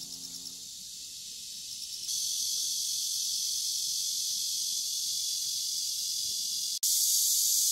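A steady, high-pitched insect chorus buzzing, with nothing lower beneath it. It gets louder about two seconds in, cuts out for an instant near the end, and comes back louder.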